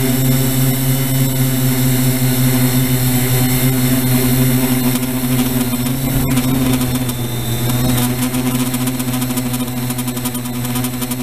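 Multirotor drone's electric motors and propellers humming steadily in flight, the pitch dipping briefly about seven seconds in.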